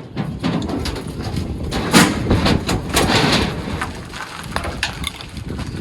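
1928 Chevrolet truck being pushed by hand, its wheels rolling with a run of knocks and clunks, loudest about two seconds in.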